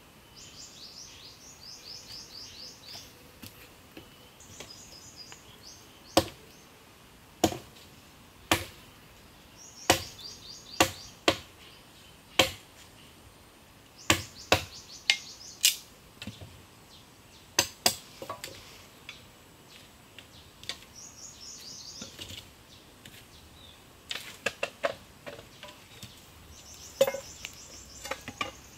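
Machete chopping bamboo poles: sharp single strikes at irregular intervals, beginning several seconds in, pausing for a few seconds and picking up again near the end. Between the strikes a bird sings a rapid high trill several times.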